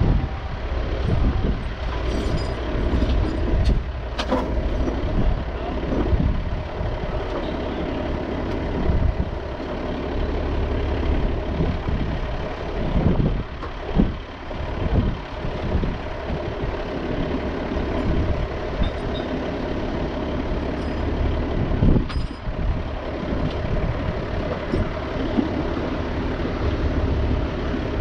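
A large engine idling steadily, with a constant hum, and wind rumbling on the microphone.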